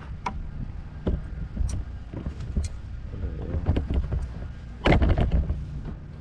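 Wind rumbling on the microphone, with scattered knocks and rustles from the camera being handled and a louder burst of handling noise about five seconds in.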